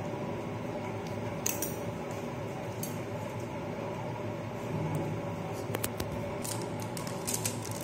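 Metal surgical instruments, scissors and artery forceps, clicking and clinking in a handful of sharp, scattered clicks as the umbilical cord is cut between its clamps, over a steady background hum.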